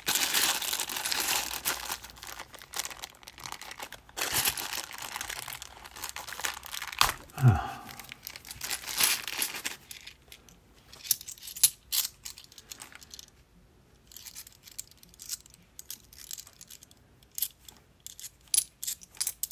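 A sealed plastic bag of £2 coins crinkling and tearing as it is pulled open, with crackling that runs for about the first half. After that, bimetallic £2 coins click against one another in scattered taps as they are thumbed through in the hand.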